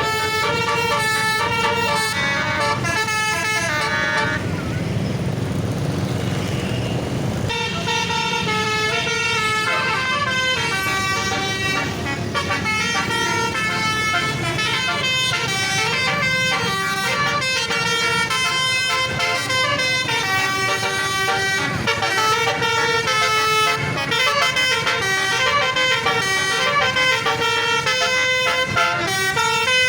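Basuri telolet bus horn, a set of electric air-horn trumpets, playing a quick melody of changing notes. About four seconds in the notes give way to a rushing noise for some three seconds, then the melody resumes.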